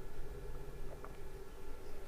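Quiet room tone with a steady faint hum and a couple of faint light ticks.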